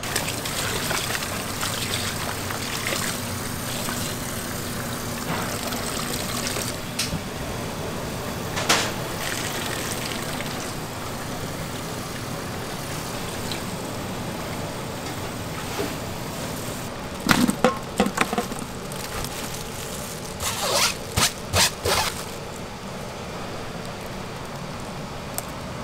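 Tap water running steadily into a steel basin while gloved hands slosh and squeeze chopped cabbage greens in the water. A few sharp knocks come from the basin and the handling, one about a third of the way in and two short clusters about two-thirds in.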